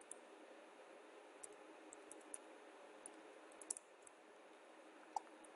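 Faint computer keyboard and mouse clicks: about ten scattered keystrokes and clicks, irregularly spaced, over a low steady hiss.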